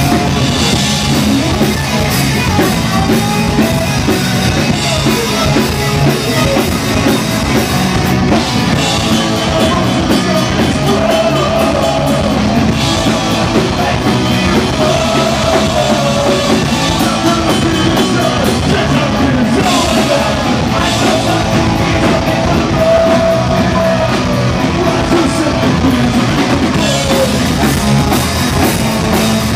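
Live punk rock band playing at a steady loud level: electric guitars, bass guitar and a drum kit.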